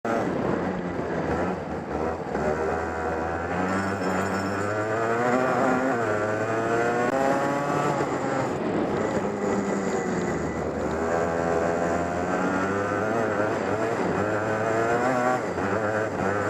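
Go-kart engine heard from on board, revving up repeatedly as the kart accelerates out of corners. The revs drop sharply twice, about halfway through and near the end, where the driver lifts off, and then climb again.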